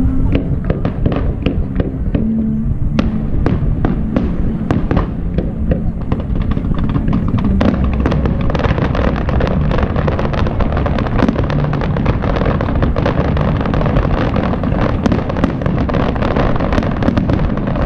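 Aerial fireworks display: a run of bangs and crackles that thickens about eight seconds in into dense, near-continuous crackling as many shells burst together.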